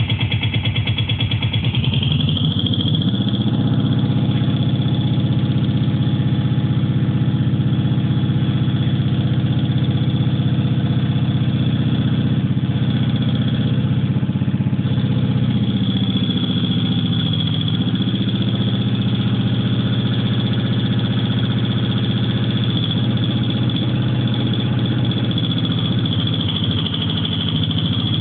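Small petrol lawnmower engine running steadily, with slight dips in pitch now and then.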